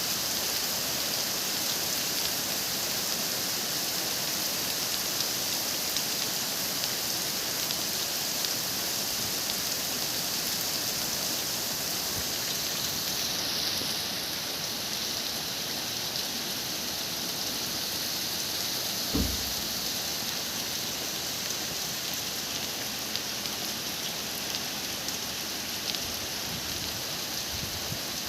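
Steady heavy rain falling, an even dense hiss with scattered drop ticks, easing slightly about halfway through. One dull thump about two-thirds of the way in.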